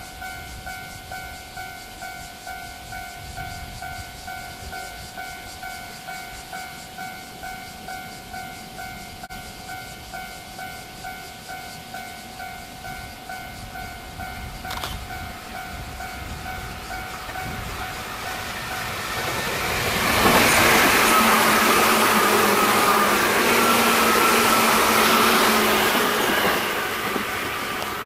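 Japanese level-crossing warning bell ringing in rapid, even dings while a JR 205 series electric train approaches. About two-thirds of the way through, the train passes close by, and its loud running noise of wheels, rails and motors drowns the bell.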